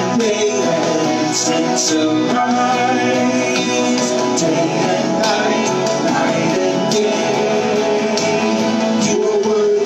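Live worship band music, guitar-led, with voices singing.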